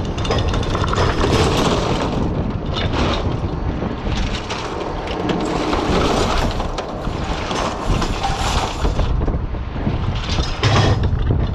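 Oyster dredge boat's engine running steadily under a rattling clatter of oysters and shells, as the dredge is emptied onto the wooden culling board and the catch is picked over.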